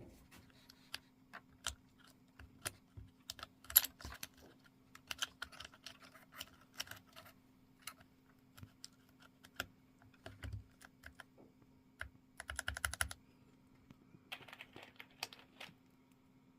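Typing on a custom-built Keychron K8 Pro mechanical keyboard with OSA-profile PBT keycaps. The keystrokes come irregularly, with a fast run of presses about three-quarters of the way through and another short flurry near the end.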